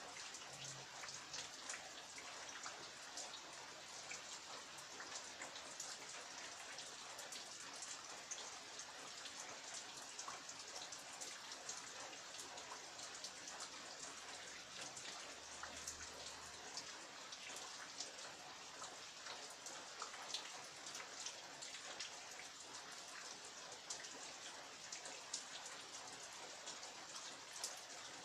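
Steady heavy rain falling, a dense hiss with many distinct drops tapping on surfaces close by.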